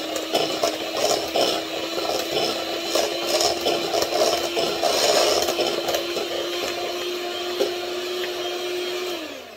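Handheld electric mixer running steadily, its beaters churning through a thick wet batter of mashed banana, butter, sour cream and eggs. It is switched off near the end, the motor's hum dropping in pitch as it winds down.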